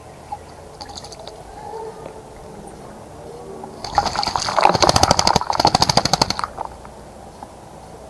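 A bird bathing in a bird bath, splashing water with rapid flicks of its wings for about three seconds from around the middle. Faint brief splashes come earlier.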